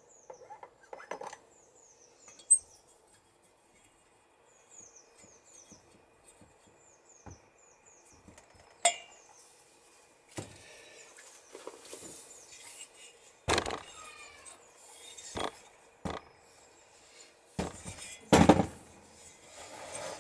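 Metal engine parts being handled on a workbench: scattered clinks and knocks of valve components and tools, with a few louder knocks and short scrapes.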